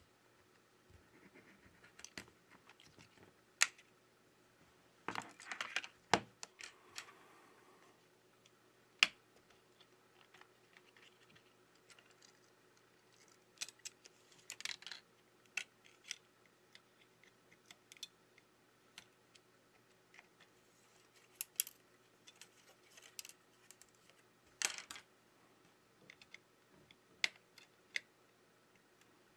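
Faint, irregular plastic clicks, taps and scrapes of a Xiaomi Redmi 8 phone being taken apart by hand: an opening pick working the back cover loose, then flex cables and small parts being handled. The clicks come in a few louder clusters.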